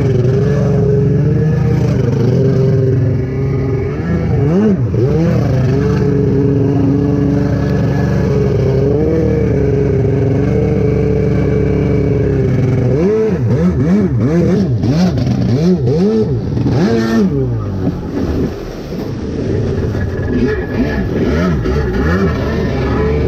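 Two-stroke stand-up jet ski engine running at speed, held fairly steady at first, then revving up and down in quick swings for several seconds past the middle before settling again.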